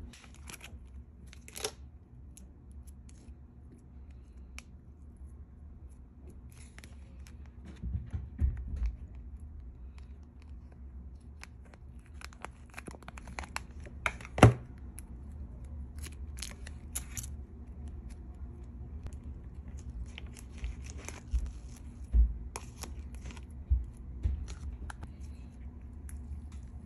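Hands handling slime and its plastic and foil packaging: scattered crackling, clicks and tearing sounds, with a few sharper snaps, the loudest about halfway through. Near the end the white slime is pulled and stretched.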